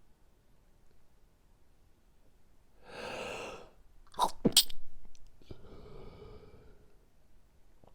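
A person sneezing: a voiced intake of under a second, then a sharp, loud double burst, followed by a breathy exhale.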